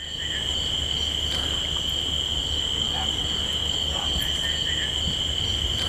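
Steady night chorus of crickets, a continuous high-pitched drone, with a low rumble underneath.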